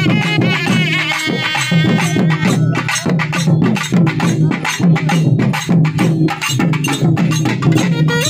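Procession band music: drums beating a fast, steady rhythm, with a wind instrument playing a wavering melody over them for the first second or two.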